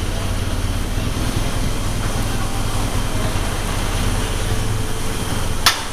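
Steady low engine rumble on a ferry's enclosed vehicle deck, with one sharp metallic click near the end.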